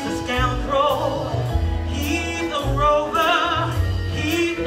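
A woman singing a soul song live into a microphone, with wide vibrato on held notes, over band accompaniment with low bass notes and a steady beat.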